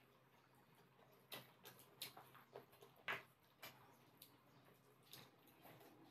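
Faint, irregular wet clicks and smacks of someone eating rice and fish curry by hand, about a dozen small sounds with the sharpest one about three seconds in.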